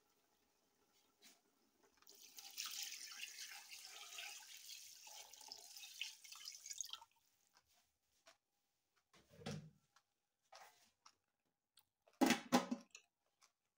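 Liquid poured from a bowl into a large metal cooking pot of meat, a steady splashing pour of about five seconds. Later comes a dull knock, then the metal pot lid clatters loudly as it is set back on the pot near the end.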